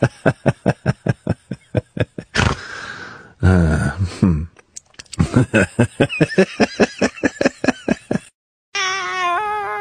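Spinning fishing reel cranked to reel in a fish: a rapid, even clicking of about seven clicks a second, with a short pause in the middle broken by a brief louder sound.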